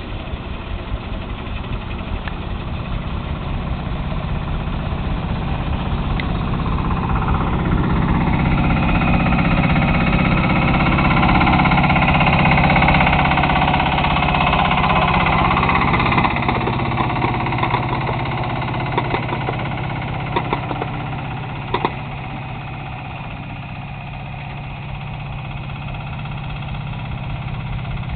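Engine of the DH4 miniature ride-on locomotive running under load as it climbs the grade, growing louder as it comes past and then fading. A few sharp clicks follow as wheels cross the track points.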